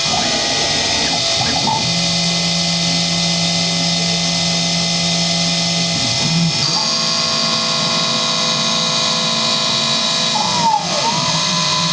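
Small CNC milling machine cutting a plastic block with a 12 mm carbide end mill on its outside profile pass, spindle at 3000 RPM. A steady whine of spindle and axis drive motors, with the motor tone gliding up and down as an axis speeds up and slows at the start and again about ten and a half seconds in.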